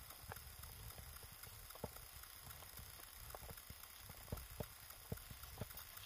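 Faint footsteps in deep snow with irregular small knocks and clicks, muffled inside an action camera's waterproof housing.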